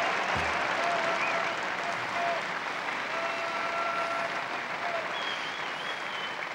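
Large open-air crowd applauding, slowly dying down.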